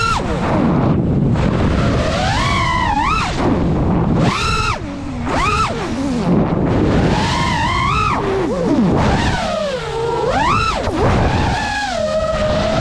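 FPV quadcopter's brushless motors whining over rushing wind noise, the pitch sweeping sharply up and down with each throttle punch. Near the end the whine settles into a steadier, slowly rising tone.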